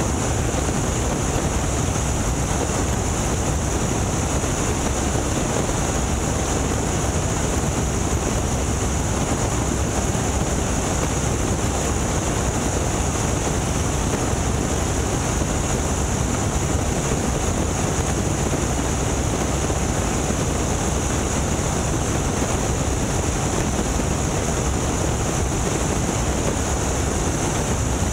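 Boeing Stearman biplane's radial engine and propeller running steadily in flight, heard from the open cockpit under a heavy rush of wind on the microphone.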